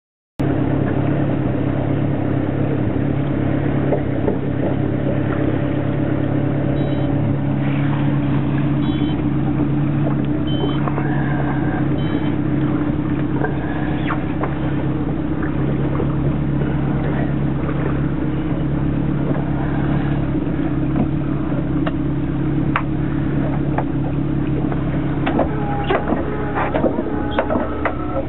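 Fishing boat engine running steadily: a loud, even low drone, with a few short knocks and clatters over it near the end.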